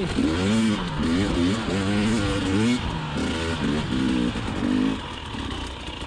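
2020 KTM 300xc TPI single-cylinder two-stroke engine revving up and down under short throttle blips while riding a trail, its pitch rising and falling several times. It drops to a lower, steadier note about five seconds in.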